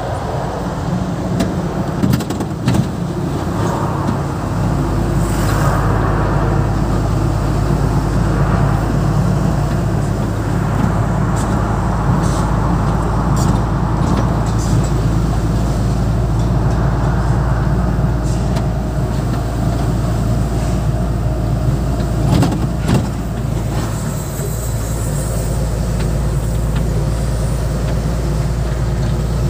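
Diesel truck engine running steadily while driving, heard from inside the cab, with a few sharp knocks and rattles about two seconds in and again past twenty seconds.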